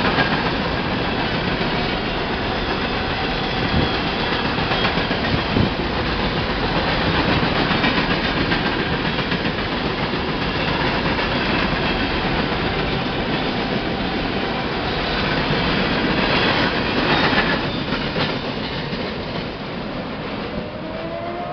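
Freight train of covered hopper cars rolling past, a steady rumble and rattle of steel wheels on the rails. The sound grows quieter near the end.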